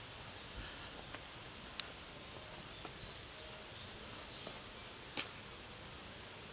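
Faint, steady, high-pitched drone of insects, with a couple of sharp faint clicks about two and five seconds in.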